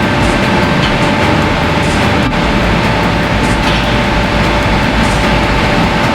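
A steady mechanical drone with a constant hum, unchanged throughout, and a faint hiss that comes back about every second and a half.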